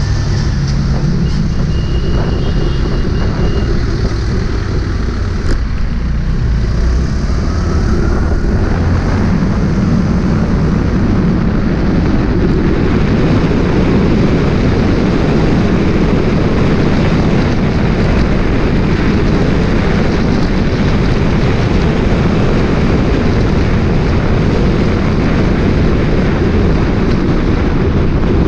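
Moving vehicle's engine and road noise with wind rushing over the microphone, a steady loud rush that grows heavier from about eight seconds in as the vehicle picks up speed on an open road.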